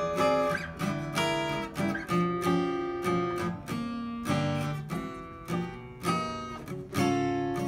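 Acoustic guitar playing jazz chords over a walking bass line. A new plucked chord or bass note sounds roughly every half second to a second, and each is left to ring.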